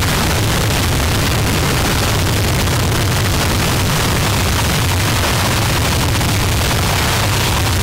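Harsh noise music: a loud, dense, unbroken mass of distorted static filling the whole range, over a heavy low rumble.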